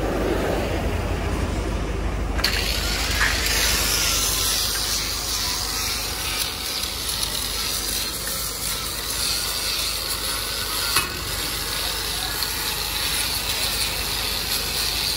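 Electric angle grinder abrading old paint off the sheet-steel side panels of a truck body, a steady harsh grinding hiss that sets in about two seconds in: surface preparation before repainting.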